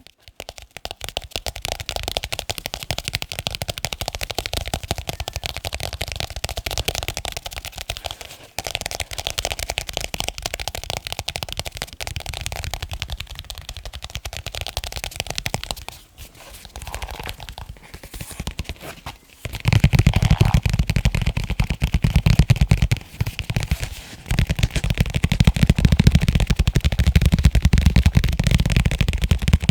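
Fast tapping on leather cases: a dense run of quick taps with a few short pauses. After about twenty seconds the tapping turns louder and deeper.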